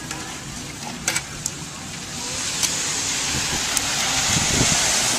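Liquid poured from a bottle splashing over live lobsters in a metal steamer pot, a steady rushing hiss that grows louder over the last few seconds. Two sharp clicks about a second in, and a few dull knocks near the end.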